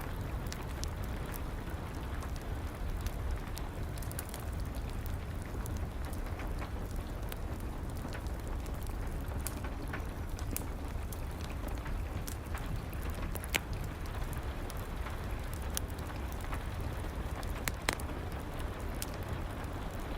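Rain and a crackling fireplace fire together: a steady hiss of rain with a low rumble underneath and scattered sharp pops, a few of them louder.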